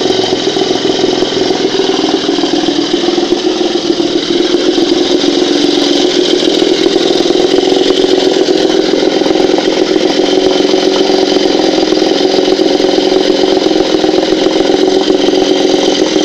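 Moskva M two-stroke, two-cylinder outboard motor running steadily, without knocking or ringing: the reworked ignition-coil core no longer catches the flywheel. It gets slightly louder a few seconds in.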